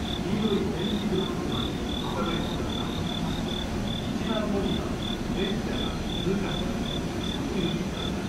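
Cricket chirping in a steady run of short high pulses, about three or four a second, over a constant low background rumble.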